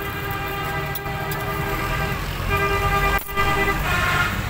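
Vehicle horns honking in street traffic: one long, steady horn note, then a second, higher horn briefly near the end, over a low traffic rumble.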